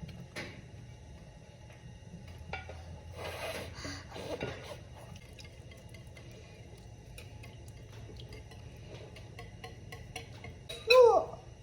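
Kitchen handling sounds: dishes, a pan and utensils clinking and scraping, with a rustling, pouring stretch a few seconds in. Near the end a short, loud high-pitched vocal cry, like a toddler's squeal, stands out above everything else.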